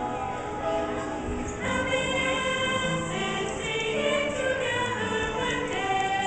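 A small group of adult singers, mostly women, singing a song together in chorus, holding notes and moving between them.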